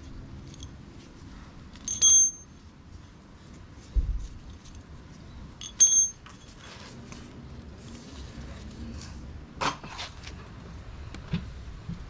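Steel bolts of a bike rack's mounting hardware clinking, giving two short, bright metallic pings about four seconds apart. A dull knock falls between them and a few light clicks of handled metal parts come near the end.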